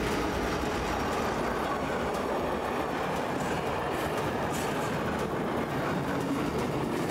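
Electric-locomotive-hauled passenger train passing close by: a steady rumble and rush of wheels on rails, with a few sharp clicks about four seconds in.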